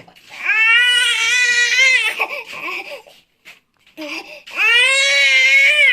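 A young child crying in long, high-pitched wails: one about half a second in that lasts well over a second, then a short lull, then another near the end.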